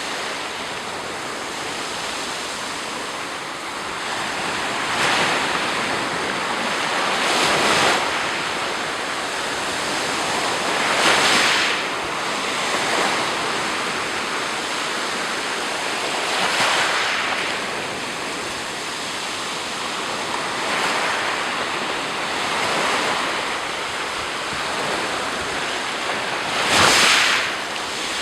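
Black Sea surf: waves breaking and washing on the shore in a continuous wash that swells every few seconds. The loudest breakers come about eleven seconds in and again near the end.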